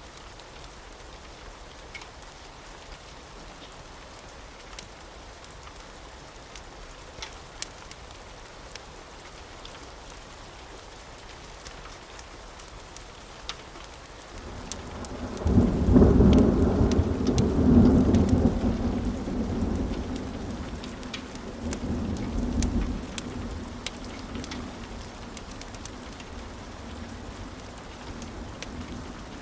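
Steady rain with scattered sharp ticks. About halfway through, a deep thunder rumble builds up and is loudest for a few seconds. It rolls on with a second, smaller swell, then fades back under the rain.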